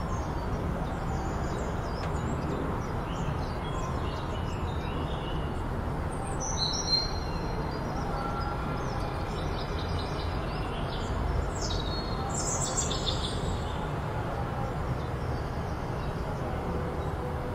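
Small birds chirping in short scattered calls, over a steady low rumble.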